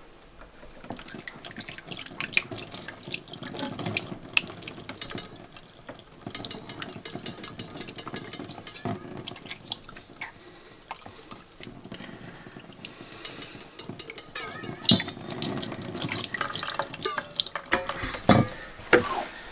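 Water poured from a kettle splashing over a small trout held in the hand and running into a stainless steel sink as the fish is rinsed, with irregular splashes and drips.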